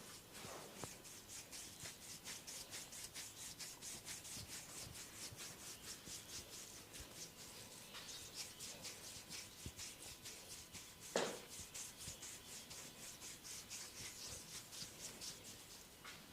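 Soft rhythmic rubbing of a head massage on hair and scalp, in quick even strokes of about three to four a second. One louder, brief sound stands out about eleven seconds in.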